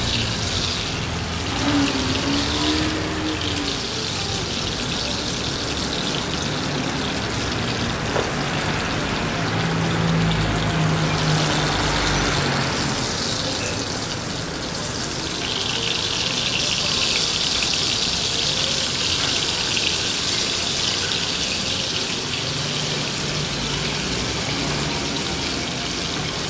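Beef steak sizzling in hot butter in a non-stick frying pan, a steady hiss and crackle of the bubbling fat. The high hiss grows stronger about halfway through.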